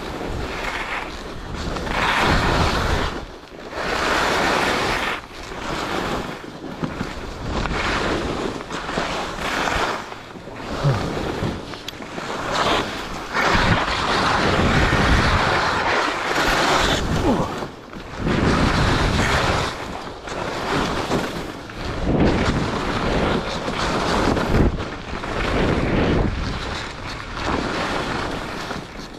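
Skis scraping and carving across packed snow in a run of linked turns, the noise swelling and fading with each turn about every one to two seconds. Wind rushes over the camera microphone the whole way down.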